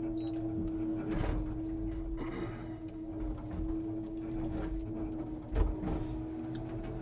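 Scania timber truck's hydraulic loader crane running with a steady whine and engine hum, with scattered clunks. A short hiss comes about two seconds in, and a heavy thump a little over five seconds in.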